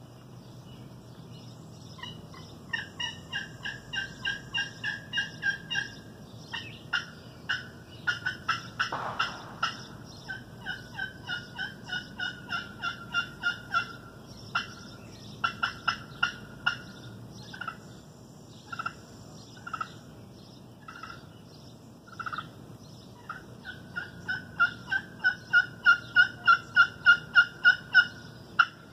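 Slate-over-glass turkey pot call played with a Tusky River wild cherry striker, giving runs of short yelping notes about three to four a second. Single scattered notes come in the middle, and a longer, louder run comes near the end.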